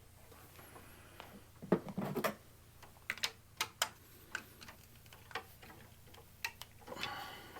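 Scattered light clicks and taps of hands and a tool working a wire into a breaker's terminal in a breaker panel, with a couple of slightly louder knocks about two seconds in.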